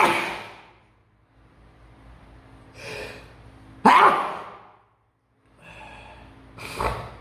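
A person sneezing hard, set off by tickling the nose with a rolled tissue or cotton bud: a loud sneeze right at the start and another about four seconds in, with a short breathy intake just before the second and smaller sneezy bursts near the end.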